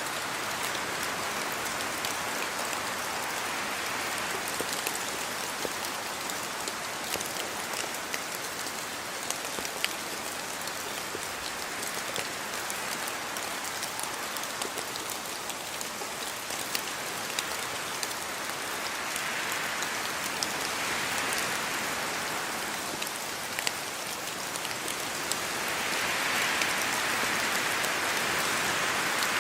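Steady rain falling, a dense hiss with many individual drops pattering on a surface, swelling somewhat louder near the end.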